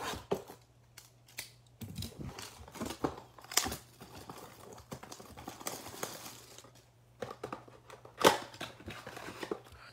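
Cellophane shrink-wrap crinkling and tearing as it is peeled off a cardboard trading-card box, in irregular crackles and snaps; the sharpest snap comes about eight seconds in.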